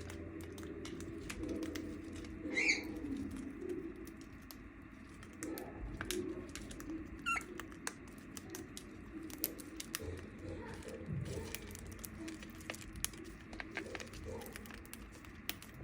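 Cockatiels giving two short chirps a few seconds apart over soft, low warbling chatter, with scattered light clicks throughout.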